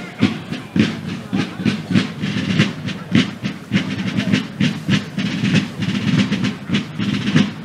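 Military field drums beating a steady marching cadence, about three strokes a second.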